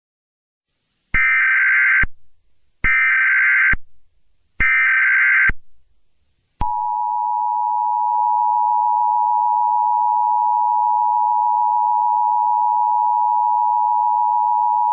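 Emergency Alert System tones. First come three short, loud SAME header data bursts with high warbling tones, each under a second long and spaced under a second apart. Then the steady two-tone EAS attention signal starts about six and a half seconds in and holds for about eight seconds.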